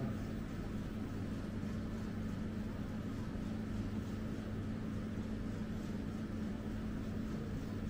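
Steady mechanical hum of kitchen equipment, with a constant low drone and an even rush of air.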